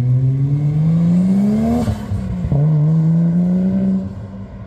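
Car engine accelerating hard away. The revs climb for about two seconds and drop with an upshift about two and a half seconds in. They climb again in the next gear, then the sound fades as the car pulls away.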